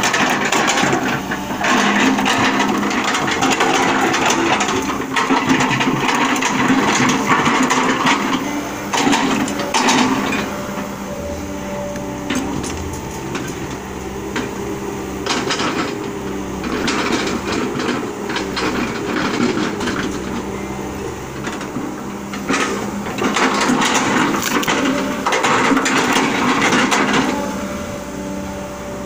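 Sumitomo excavator's diesel engine running with a steady hum, rising in long loud stretches as the hydraulics work the log grapple. Over it come knocks and crunches as the grapple grips and lifts rubber-wood logs.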